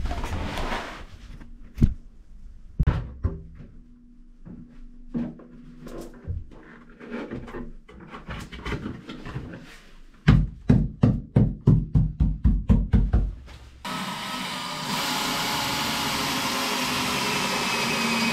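Scattered knocks as a plywood panel is handled and fitted, then a fast run of about a dozen heavy knocks, some four a second. From about fourteen seconds a Ryobi cordless drill runs steadily, driving screws through the plywood into the boat's beam.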